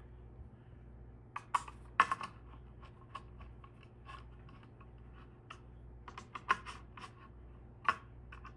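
Scattered clicks and light knocks of small hardware being handled while ceiling fan blades are assembled, with a couple of sharper knocks about two seconds in and again near the end. A steady low hum runs underneath.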